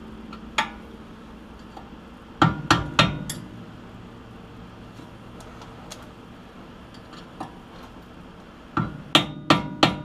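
Small hammer striking a steel bar held against the brake caliper bracket's tabs, bending them over toward the bolt heads. There is a single tap, then three quick taps about two and a half seconds in and another rapid run of taps near the end, each with a short metallic ring.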